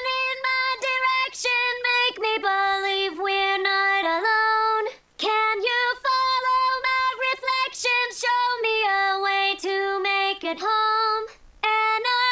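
Synthetic female vocal from Emvoice One, pitched up two semitones, singing a hardstyle vocal line unaccompanied in held, high notes, with two short breaths of silence between phrases.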